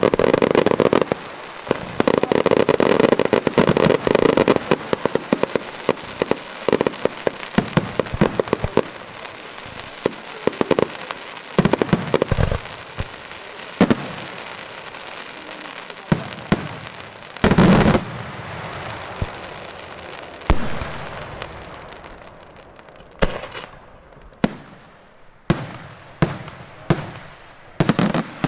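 Daytime fireworks display: a dense, rapid barrage of crackling bangs for the first several seconds, then separate loud reports, the heaviest about two-thirds of the way through. Near the end it thins to single bangs about one a second, each followed by a rolling echo.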